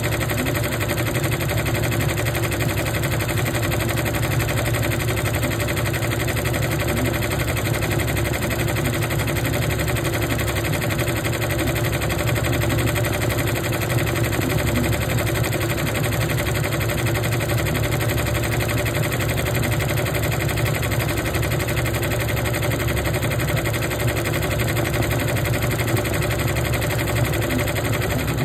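Multi-needle embroidery machine stitching at speed: a steady, rapid needle clatter over the hum of its drive.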